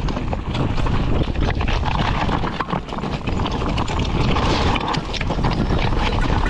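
Mountain bike riding over a rough, rocky trail: a continuous dense clatter of small knocks as the tyres and bike rattle over stones, with steady rushing noise underneath.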